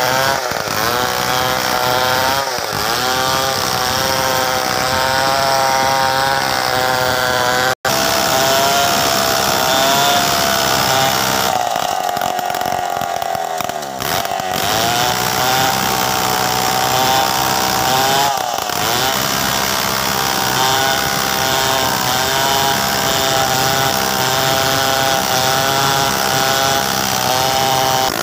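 Two-stroke chainsaw running at full throttle while cutting through a mahogany log, its pitch dipping and recovering as the chain loads up in the wood. The sound drops out for an instant about eight seconds in.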